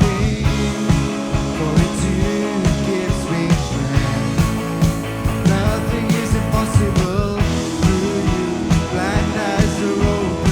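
Worship band music from a praise song, in an instrumental passage between sung lines, with a steady beat and a gliding lead melody over sustained chords.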